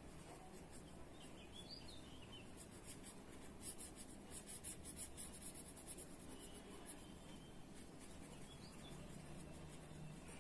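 Faint pencil scratching on paper in quick short strokes, busiest in the middle, as small details are drawn in a pencil sketch.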